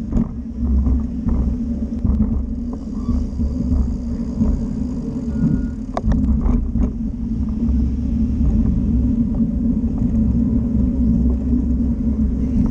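Steady wind rumble on the microphone and road noise while riding an electric bike along a paved street, with a few short sharp clicks about six seconds in.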